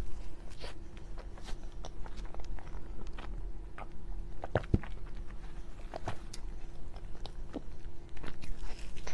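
A person eating close to the microphone: bites and chewing with scattered small clicks and smacks, over a faint steady hum.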